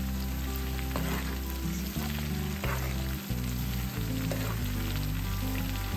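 Chopped garlic and chili sizzling in hot oil in a steel wok, stirred now and then with a metal ladle, with a stream of liquid poured into the oil partway through.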